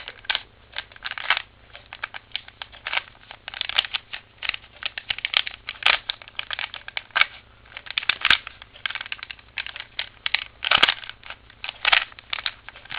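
3x3x3 Rubik's Cube being turned by hand, its plastic layers clicking and clacking in quick, irregular runs of turns.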